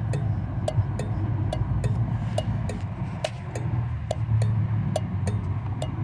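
The opened thermal bimetallic turn-signal flasher of a Jeep Cherokee clicking as its bimetallic strip bends onto the contact and springs back, about three clicks a second, over a steady low hum.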